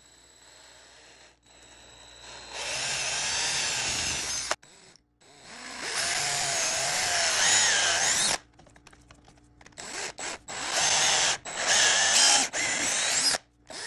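Cordless drill boring holes into the broken tine stubs of a whitetail deer's antler. It starts a couple of seconds in and runs in several bursts with short stops between, its whine wavering in pitch as the bit works into the antler.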